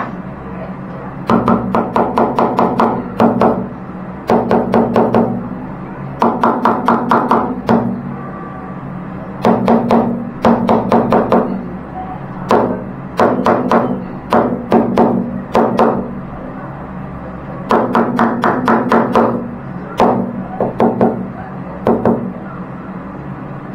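Rubber mallet tapping a ceramic wall tile into place, in bursts of rapid taps, several a second, with short pauses between.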